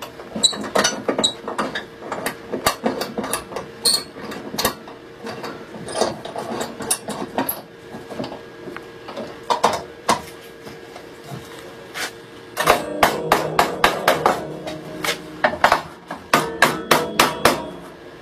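Light hammer taps and knocks on a wooden frame-saw part and metal G-clamps, tapping the frame into square. The taps are scattered at first, then come in quicker runs with a short ringing note about two-thirds of the way in and near the end.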